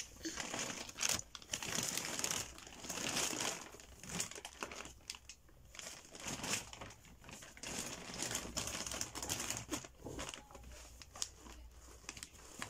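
Plastic bag crinkling and rustling in irregular bursts as a toddler grabs and pulls at it.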